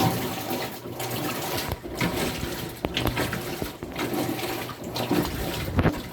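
Water churning and sloshing inside a washing machine tub, in uneven surges.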